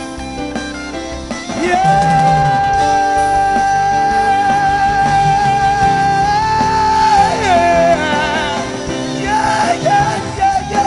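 Worship band music with guitar, over which a singer holds one long note for about five seconds, then breaks into sung runs without words.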